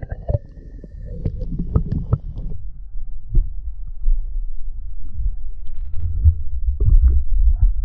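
Wind buffeting an action-camera microphone: a low, uneven rumble, with a cluster of sharp knocks in the first two seconds or so and a few more near the end.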